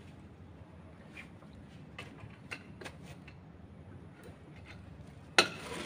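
Faint rustling and light clicks from a cloth snake bag being handled and tied off, then one sharp knock near the end.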